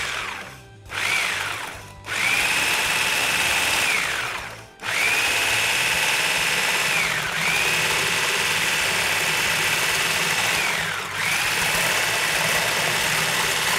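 Hand-held stick blender with a whisk attachment beating eggs and sugar in a stainless steel bowl: a steady high motor whine. It runs briefly about a second in, then in long stretches that stop or slow and pick up again a few times.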